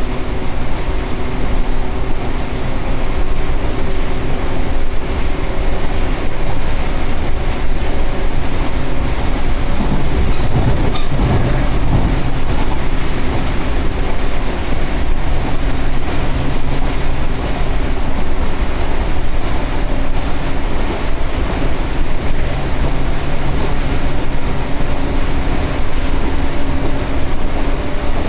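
Riding inside an Echizen Railway electric train running between stations: continuous rumble of wheels on rail with a faint steady hum. There is a short louder rumble about ten seconds in, with a single click.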